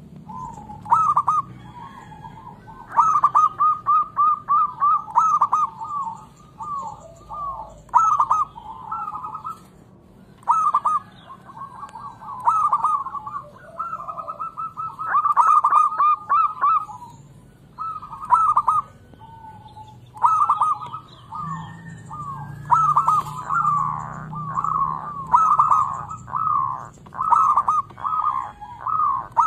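Zebra dove (perkutut) song: phrases of quick, staccato cooing notes, repeated again and again with short pauses between them.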